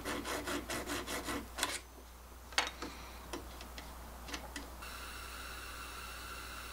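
Small hand file rasping back and forth on a metal arrow field point, about four strokes a second, stopping about two seconds in. A few light clicks follow, then a steady hiss.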